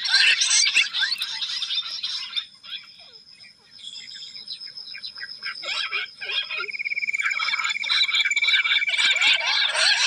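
A covey of jungle bush quail calling: a dense chorus of quick high chirps that thins out about two and a half seconds in and swells again from about seven seconds. A thin steady high tone runs under it, dropping in pitch about halfway through.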